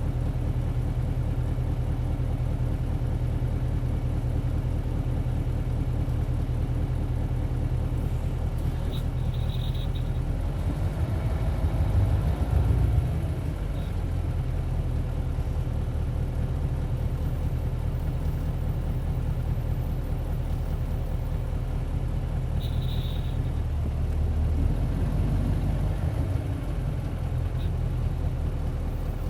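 Isuzu Cubic city bus's 8PE1-S V8 diesel engine running under way, heard from inside the bus, swelling louder about 11 seconds in and again near the end. Two short high beeps sound, about 9 seconds in and about 23 seconds in.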